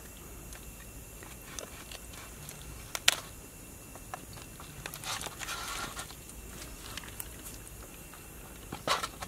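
Hands pulling apart a cooked king crab's body: scattered crackles and clicks of shell and meat being torn and picked, with the sharpest crack about three seconds in and a busy patch a couple of seconds later.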